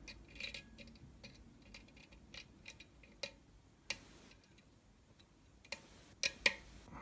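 Lock pick and tension wrench working the pins of a Falcon pin-tumbler lock cylinder: irregular light metallic clicks and ticks as pins are lifted and set, with the loudest couple of clicks near the end.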